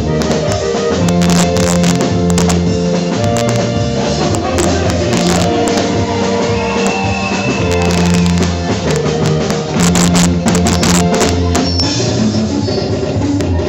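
Worship music played by a band, with drum kit, guitar and held bass notes under a steady beat.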